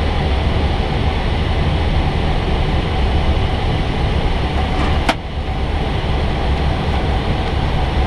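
Steady rush of airflow and air conditioning inside an Airbus A320 cockpit in flight, over a deep low rumble. A single sharp click about five seconds in, after which the hiss dips for a moment.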